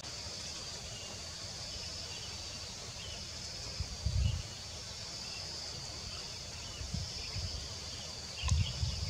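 Forest ambience: a steady high insect buzz with faint scattered bird chirps. Wind buffets the microphone in low rumbles about four seconds in and again near the end.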